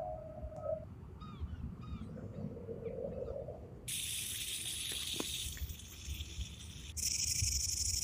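A humpback whale's drawn-out tonal call ends within the first second. From about four seconds in a snake hisses steadily, and a second, louder snake hiss takes over about three seconds later.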